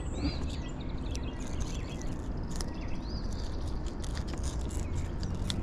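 Outdoor creek ambience: a steady hiss with a small bird's short chirp repeating every two or three seconds, and scattered light clicks and scrapes from handling.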